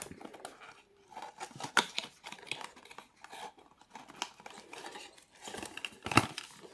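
Cardboard advent-calendar compartment being opened by hand: card and paper packaging rustling and tearing, with scattered clicks and taps, the sharpest about six seconds in.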